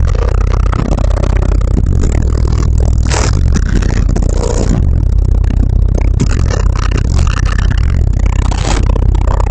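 Car stereo with two Fi SP4 18-inch subwoofers in a wall build playing a deep bass line very loudly, with the car's body and panels rattling and buzzing along with it.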